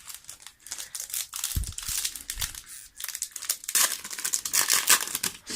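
Foil booster-pack wrapper crinkling and tearing open by hand, in two bouts of rustling, the second one louder.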